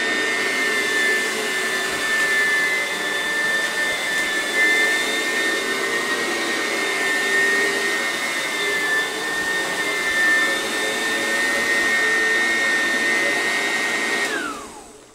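Eureka Sanitaire commercial upright vacuum running steadily with a high motor whine. It is switched off about a second before the end, and its motor winds down with a falling pitch.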